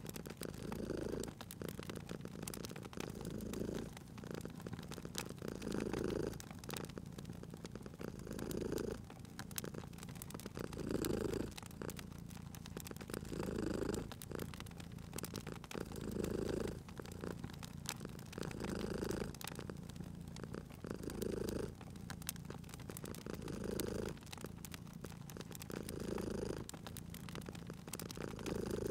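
A cat purring, swelling and fading with each breath about every two and a half seconds, over the scattered small snaps of a crackling wood fire.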